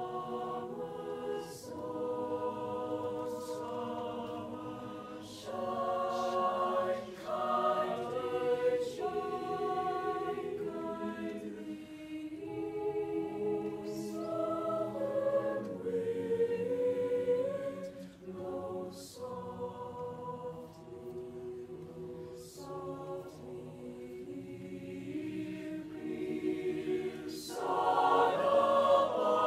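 Mixed-voice choir singing sustained chords in harmony, the voices shifting from chord to chord with crisp consonants; the choir swells louder near the end.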